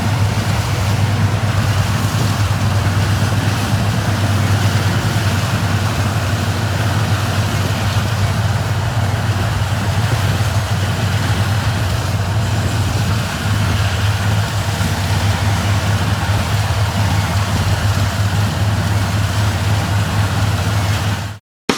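Engine of vintage harvest machinery running steadily with a low, even drone, cutting off suddenly near the end.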